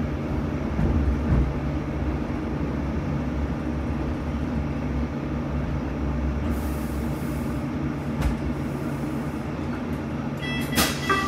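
Sheffield Supertram tram running, heard from inside the car: a steady rumble of wheels on rail with a low motor hum. Near the end a short run of electronic beeps and a knock.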